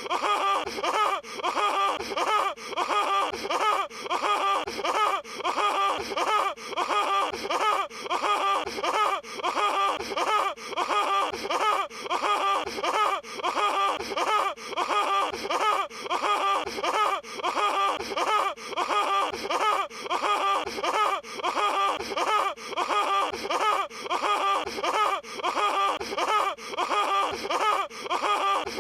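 Patrick Star's cartoon laugh sound effect, a short voiced laugh looped over and over with identical repeats about every 0.7 seconds.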